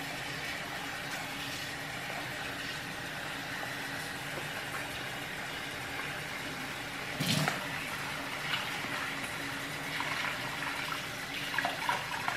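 Water running steadily from a kitchen tap into a bowl of jasmine rice to soak it. A knock comes about seven seconds in, with a few lighter knocks after.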